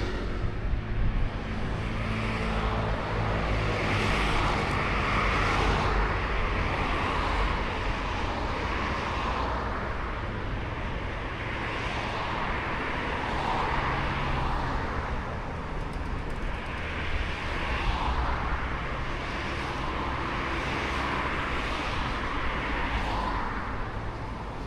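Outdoor seaside ambience: a steady low rumble under a wash of noise that swells and fades every few seconds.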